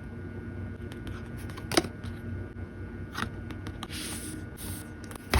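Photocards and plastic packing sleeves being handled: scattered small clicks and crinkling rustles over a faint steady low hum, with sharper clicks nearly two seconds in and again a little past three seconds, and a longer crinkle near the end.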